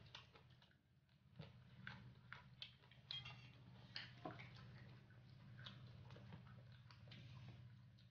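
Faint eating sounds: scattered small clicks and crackles as raw leunca berries and rice are picked and eaten by hand, with chewing, over a low steady hum.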